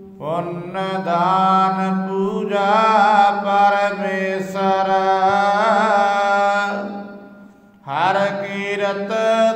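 A voice singing Gurbani in long, wavering melodic phrases over a steady low drone. The voice fades away about seven seconds in and starts a new phrase near the end.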